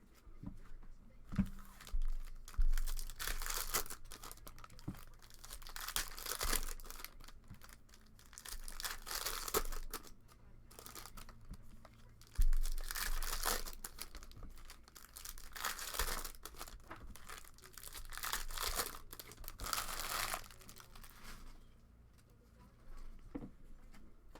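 Wrapping on a box of Prizm soccer trading cards and its packs being torn open and crinkled by hand, in repeated crackly bursts with a couple of heavier thumps.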